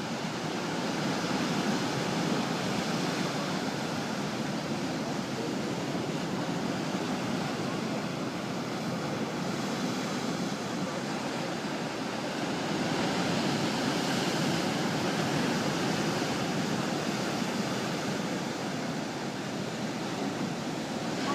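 Ocean surf: a steady rush of breaking waves that swells and eases slowly, louder about two seconds in and again past the middle.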